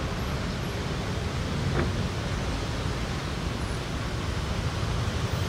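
Steady low rumbling background noise with no speech, and one faint click about two seconds in.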